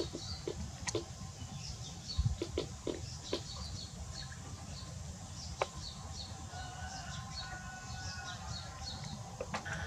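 Small birds chirping over a steady low rumble, with scattered light taps and a single dull thump about two seconds in.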